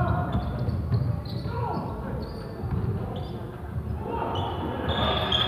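Indoor basketball game: a ball bouncing on a hardwood court, sneakers squeaking on the floor, and players calling out, with the voices louder near the end.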